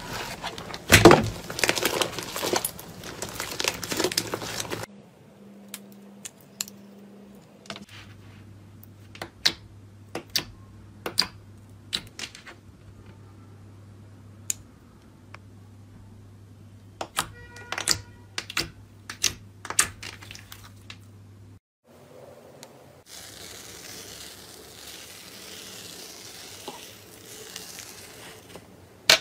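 Slime being worked by hand in a series of short clips: dense crackling for the first few seconds, then scattered sharp clicks and pops, then a soft hiss with a few more clicks near the end.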